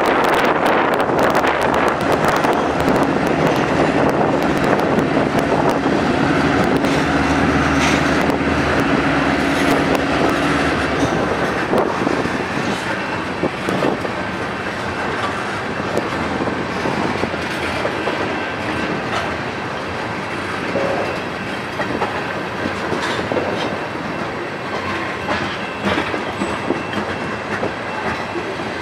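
Freight train's boxcars and tank cars rolling past close by, wheels clicking steadily over the rail joints. For the first ten seconds or so a steady low drone from the departing GP9 diesel locomotives lies under the wheel noise, then fades out.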